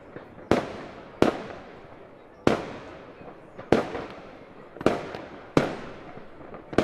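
Fireworks going off: seven sharp bangs at uneven intervals of about a second, each followed by a fading echo.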